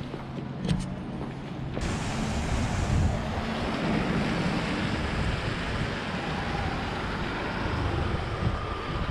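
Wind rushing over the camera's microphone, an even rumbling hiss that sets in suddenly about two seconds in, with faint street traffic underneath.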